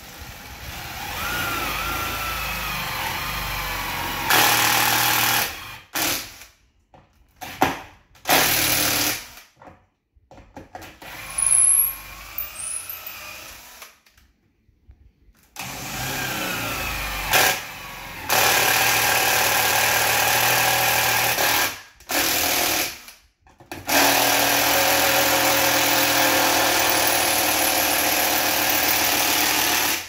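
Cordless drill boring pilot holes through a wooden cabinet drawer front, run in repeated bursts that start and stop abruptly, the motor pitch rising and falling with the trigger.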